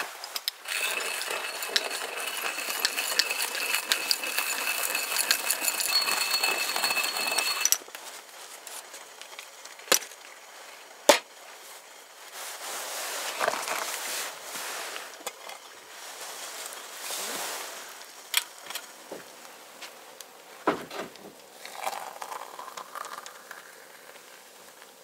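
About eight seconds of steady outdoor background noise with a thin high whine, which cuts off abruptly. Then come sparse clinks and knocks of metal camp cookware and coffee gear being handled. Near the end water is poured from a small metal pot into a coffee press, rising in pitch as it fills.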